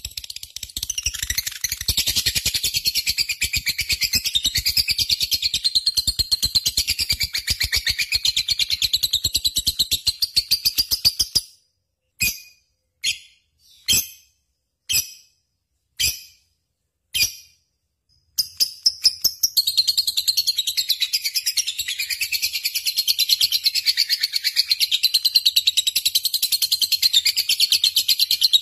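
Lovebird singing in a long, rapid, high-pitched chattering run. About eleven seconds in it breaks off into six short bursts, then goes back to continuous chatter from about eighteen seconds on.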